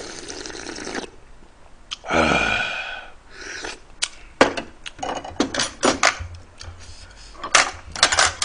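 Broth slurped from a metal ladle, then a loud throaty vocal sound about two seconds in, the kind of satisfied exhale or burp that follows a hot spicy mouthful. From about four seconds on, utensils click sharply and repeatedly against the pot and side dishes.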